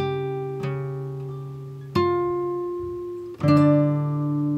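Background music: a slow melody on a plucked string instrument, four notes each left to ring out and fade.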